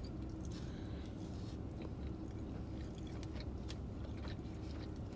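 A person chewing food close to the microphone, with faint scattered mouth clicks, over a steady low hum.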